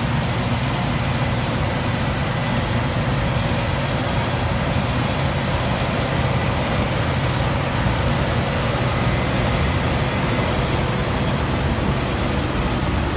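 Claas Lexion combine harvester running steadily while cutting barley: a constant engine hum under the even rushing noise of the threshing machinery.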